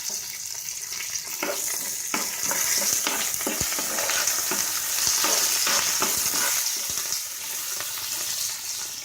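Tempering spices (split urad dal, mustard seeds, cumin and dried red chillies) frying in hot oil in a pan: a steady high sizzle with scattered clicks as the pan is stirred.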